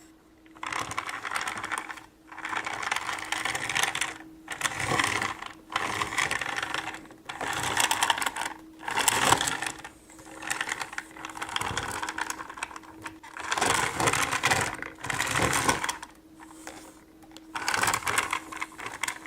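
Plastic toy sleigh pushed along a surface in repeated strokes of a second or two each, its wheels and swirling-snow gear mechanism whirring and rattling.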